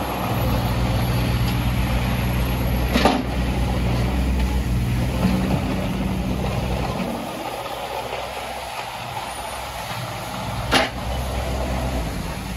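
Bobcat E19 mini excavator's 3-cylinder Kubota diesel running steadily under hydraulic load as the machine slews around on its tracks. Two sharp knocks sound, one about three seconds in and one near the end.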